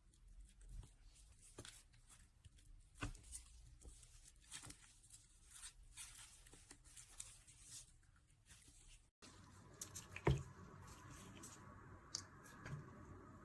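Faint close-up handling sounds of a squishy stress-relief toy: scattered small crackles, clicks and sticky tearing noises. About nine seconds in the sound cuts off, then a faint hiss follows with one sharper knock.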